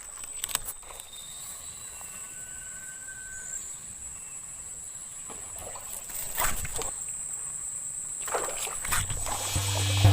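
Quiet outdoor ambience with a steady high whine, a few short faint whistles and a few splashes of water. Music with a beat comes in about nine seconds in.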